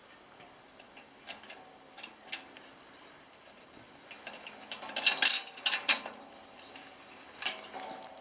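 Scattered sharp clicks and light knocks, like hard objects being handled, with a cluster of loud clicks about five to six seconds in.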